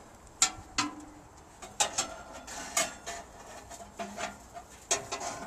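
A series of sharp metallic clinks and knocks at irregular intervals, from the steel parts of an H-45 multi-fuel heater being handled.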